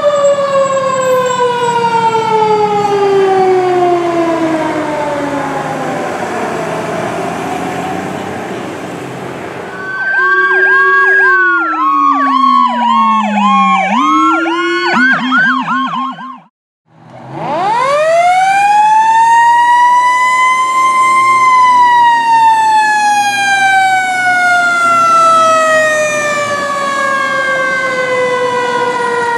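Fire engine sirens. First a wail falls slowly in pitch and fades as the engine drives off. Then comes about six seconds of fast, repeating yelp, and a brief cut. Then a siren winds up to a high pitch and slowly winds down again.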